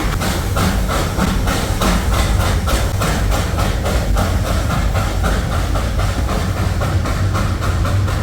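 Steam locomotive of the Darjeeling toy train working under way, its exhaust chuffing rapidly and evenly, about four beats a second, over a steady low rumble of the train running on the track.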